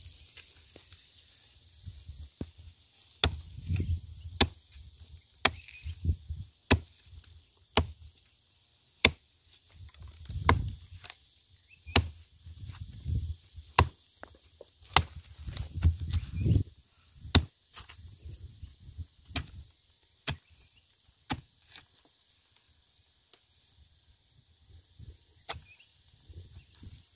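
Hatchet chopping into a fibrous, charred stump: a run of sharp blows, roughly one a second, with dull thuds under them, thinning out to a few strokes near the end.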